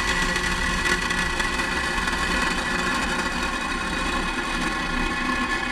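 Falcon 9 first-stage Merlin 1D engines firing during the first seconds of ascent after liftoff: a steady, unbroken noise.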